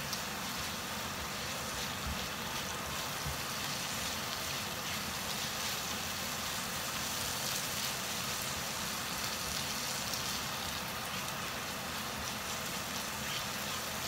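Spice paste with lemongrass sizzling steadily as it is fried and stirred in a wok with a silicone spatula.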